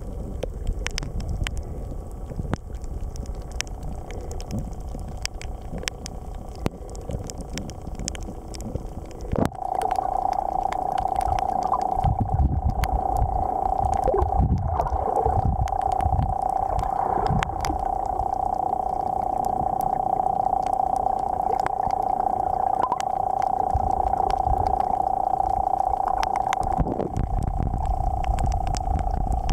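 Underwater sound of shallow water surging over a rocky reef: a low rumble of moving water with constant crackling clicks. A steady hum runs underneath, growing much louder about nine seconds in and easing a few seconds before the end.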